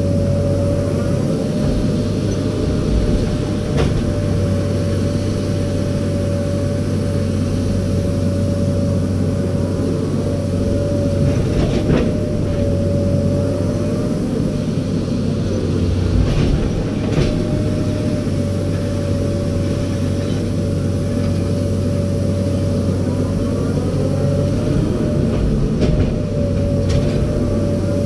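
Komatsu PC200 hydraulic excavator heard from inside the cab: the diesel engine runs steadily under a constant high hydraulic whine, with a few sharp clicks and knocks from the machine as it works.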